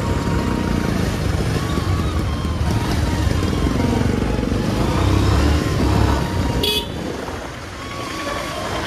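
Bajaj Pulsar 150's single-cylinder engine running as the motorcycle is ridden, with steady wind and road noise on the helmet-mounted microphone. A short high-pitched vehicle horn toot sounds about two-thirds of the way in.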